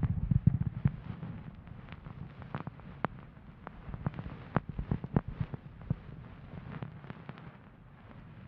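Bonten ear-pick puff brushing and rubbing against a binaural microphone's ear: close, scratchy rustling full of small crackles and clicks, with low thumps, busiest in the first second and again around four to six seconds in.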